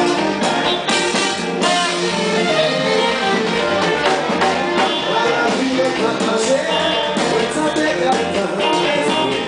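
Live Haitian kompa band playing, with drum kit beat, electric guitar and congas.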